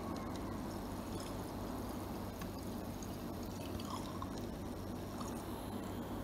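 Handheld battery milk frother whisking a jar of water into a whirlpool: a steady low motor hum with the water churning.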